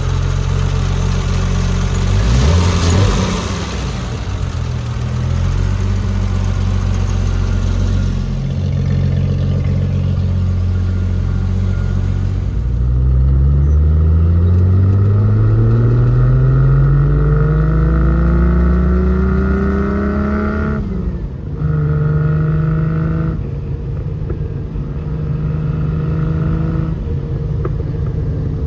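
Triumph GT6+ straight-six engine, fuel-injected with a Bell dual exhaust, running steadily with a brief loud rush of noise about two seconds in. About halfway through its pitch rises smoothly for some seven seconds, then falls suddenly and the engine runs steadily again at a lower pitch.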